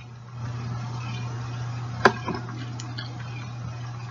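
A steady low hum with background hiss, and a sharp click about two seconds in followed by a few fainter clicks.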